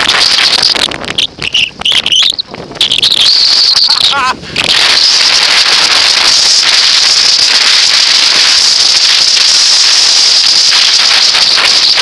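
Mountain bike rolling fast down a rough grassy slope, with loud, steady wind rush and tyre noise on the riding camera from about four seconds in. Before that come a few seconds of broken, high-pitched sounds.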